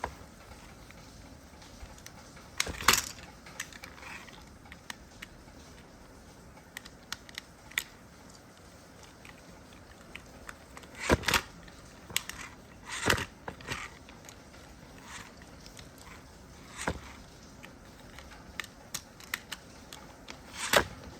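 Scattered sharp knocks and clatters: about five louder ones several seconds apart, with smaller taps between, over a faint steady background.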